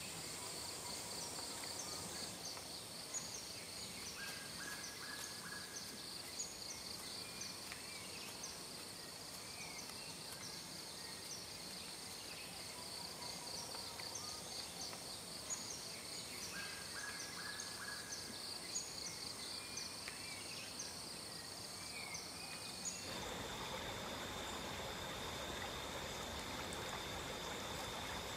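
Rainforest ambience: a steady, fast-pulsing insect chorus with a high insect whine and scattered short bird chirps. Near the end it cuts to running stream water with one steady high insect tone over it.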